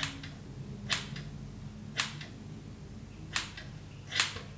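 Scissors snipping through a fringe of hair, five short sharp snips about a second apart.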